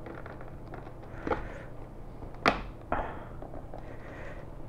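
Sharp plastic clicks and small taps as a visor is worked onto the side pivot mechanism of an X-Lite X-803 RS motorcycle helmet. There are three clear clicks, the loudest about two and a half seconds in.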